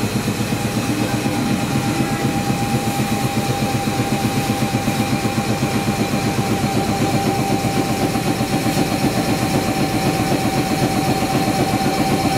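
Tobu 300 series electric train standing at the platform with its underfloor equipment running: an even, rapid chugging of about six beats a second with a steady high whine over it.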